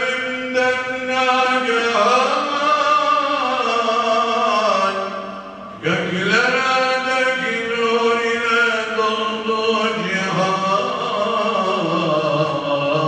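A man sings a Turkish Islamic hymn (ilahi) in praise of the Prophet solo into a microphone, unaccompanied, in long ornamented held notes. He breaks off briefly about six seconds in, then goes on.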